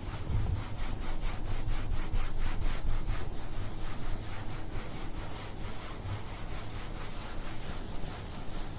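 A cloth wiping a kitchen surface in quick, even back-and-forth strokes, about three a second.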